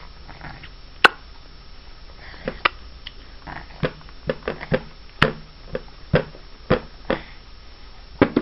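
About a dozen sharp, irregular knocks and taps, coming a fraction of a second to about a second apart.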